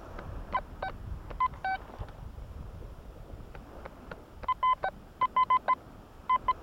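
Quest Q40 metal detector giving short target beeps as its coil sweeps over sand, mostly at one mid pitch with an occasional lower tone. A few scattered beeps come first, then quick bunches of two to five beeps in the second half as the coil passes over several shallow targets.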